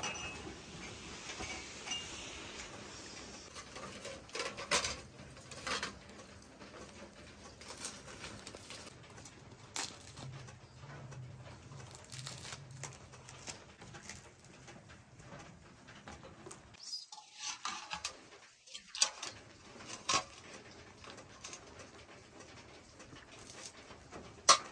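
Cloth rustling and hands handling fresh tandoor flatbread, wrapping it and tearing a piece, with scattered soft clicks and knocks. One sharper knock comes near the end.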